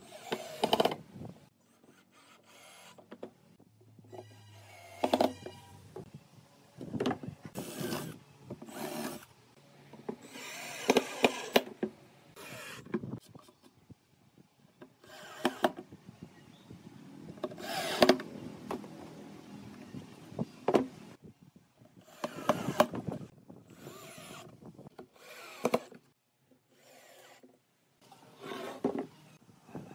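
Cordless drill driving screws into wooden boards in a series of short runs, with wooden pieces knocked and shifted on the workbench between them.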